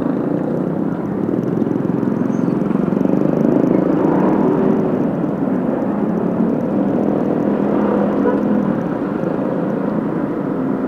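Motorcycle engine running at low speed through slow traffic, a steady rumble mixed with the noise of nearby cars and a truck.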